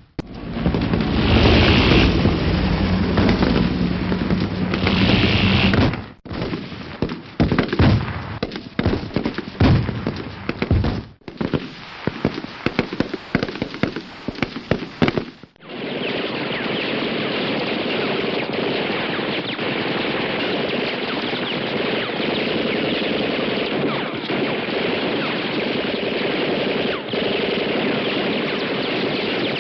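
A sequence of gunfire sound effects. It opens with a few seconds of heavy, rumbling battle noise, then separate sharp shots and short bursts. From about halfway on, a long unbroken crackle of rapid gunfire runs on.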